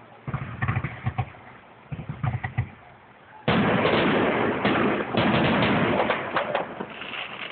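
Aerial fireworks going off: two quick clusters of bangs, then about halfway through a sudden loud, dense crackling that fades near the end.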